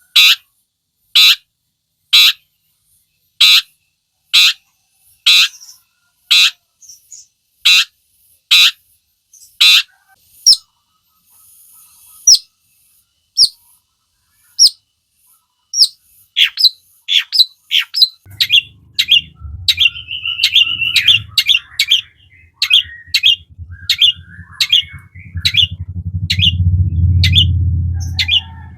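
Long-tailed shrike giving loud, harsh calls about one a second, then from about halfway a faster run of shorter down-slurred notes and chatter. A low rumble comes in about two-thirds of the way through and is strongest near the end.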